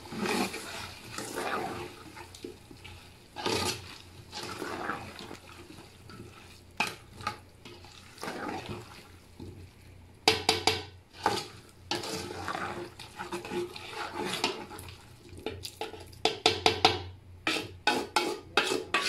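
A steel ladle stirs potatoes and peas in a large metal cooking pot, scraping through the food and clinking against the pot's sides. The clinks grow sharper and more frequent in the second half, with a quick run of knocks near the end.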